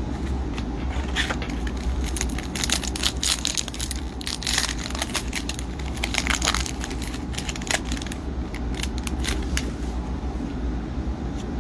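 Foil wrapper of a retail hockey card pack crinkling and tearing as the pack is opened: a run of sharp crackles, thickest in the first two-thirds, over a steady low hum.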